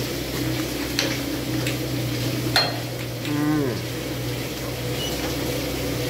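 Steady hum of milking-shed machinery, with a few sharp clicks and one short, low voiced sound a little past the middle that rises and falls in pitch.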